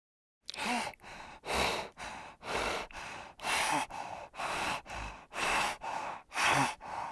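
An animal breathing heavily and rhythmically close to the microphone, starting about half a second in: a loud breath about once a second with a softer one between, at times with a faint grunt.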